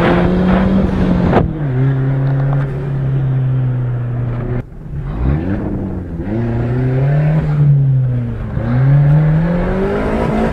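Turbocharged Fiat Palio Fire 1.0 four-cylinder engine driven hard, heard from inside the car. Its revs climb and fall with the gear changes. There is a sharp click about a second and a half in, and the engine briefly drops off a little under halfway through before pulling up again.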